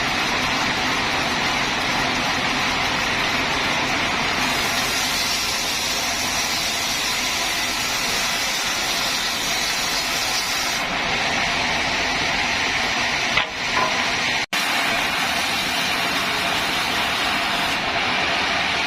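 Band sawmill running and sawing a small round teak log, a steady dense hiss of the blade through the wood. There is a brief dip about thirteen and a half seconds in and a momentary dropout about a second later.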